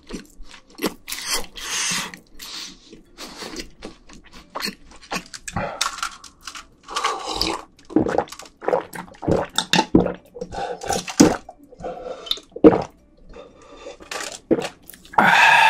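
Close-miked eating sounds: wet chewing and smacking of a mouthful, then gulping swallows of a dark drink from a glass bottle, ending in a voiced exhale.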